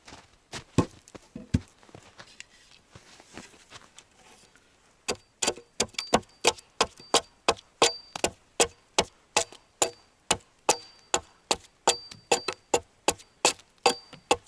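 A tool striking wood in a steady run of sharp blows, about two or three a second, some with a faint metallic ring; it starts about five seconds in, after a few scattered knocks.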